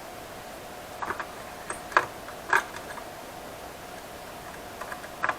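Small, sharp clicks and taps of laptop parts being handled and fitted back together during reassembly. There are a few separate clicks about one, two and two and a half seconds in and a quick cluster near the end, over a faint steady hum.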